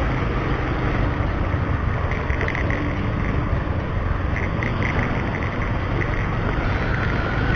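Steady rush of wind on the microphone over the engine and tyre noise of a two-wheeler being ridden along a road.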